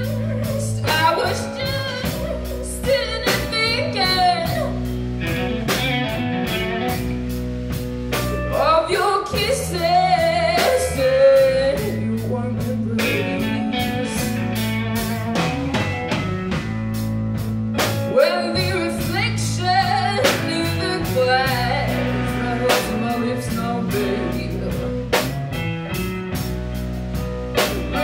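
Live blues band playing an instrumental passage: an electric guitar lead with bent, wavering notes over rhythm guitar and a drum kit keeping a steady beat.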